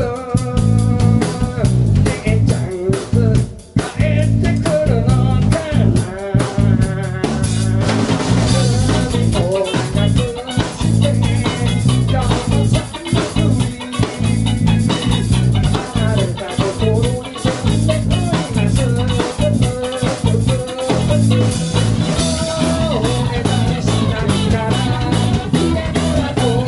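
Rock band playing live on electric guitars and drum kit. The playing breaks off briefly several times in the first eight seconds, then the full band plays on continuously.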